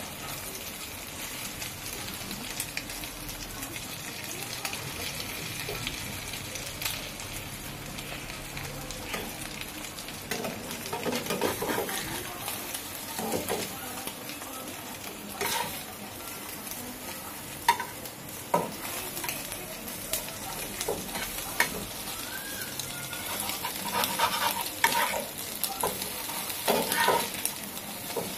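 An egg and aubergine mixture sizzling in oil in a pan, with a spatula scraping, pressing and turning it. The steady sizzle runs throughout; from about the middle on there are frequent scrapes and sharp taps of the spatula against the pan.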